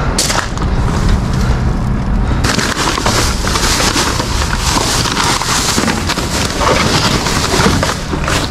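Thin plastic bin bags rustling and crinkling as a hand rummages through a large wheelie bin, louder and denser from about two and a half seconds in. A knock from the bin lid being lifted comes at the start. Wind buffets the microphone underneath.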